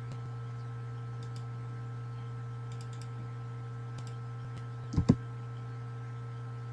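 Computer keyboard and mouse clicks, a few faint ones and two louder ones in quick succession about five seconds in, over a steady electrical hum.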